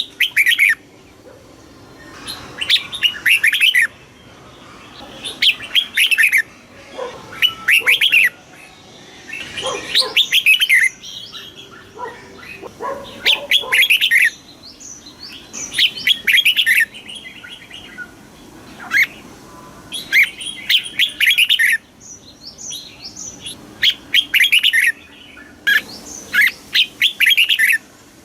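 Red-whiskered bulbul singing in the southern 'master song' style: about ten short, bright warbled phrases, each about a second long, repeated every two to three seconds.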